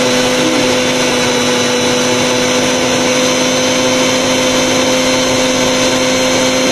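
Preethi Galaxy Plus mixer grinder's 750-watt motor running steadily with its juicer jar, blending watermelon chunks into juice: a loud, even whir with a steady hum.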